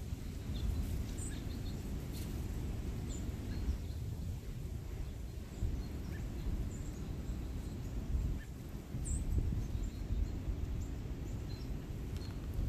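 Outdoor ambience: a low, uneven rumble of wind on the microphone, with a few faint, short, high bird chirps scattered through it.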